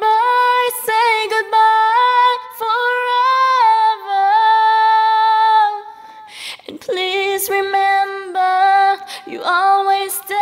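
A woman singing a sad song alone, without accompaniment, in long held notes, with a short break about six seconds in before she sings on.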